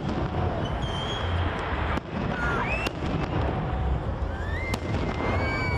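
Fireworks salute: continuous low booming of shells bursting, with three sharp cracks and several high whistles gliding up and down.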